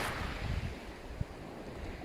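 Black Sea surf washing onto the shore, a breaking wave's wash easing off, with wind rumbling on the microphone.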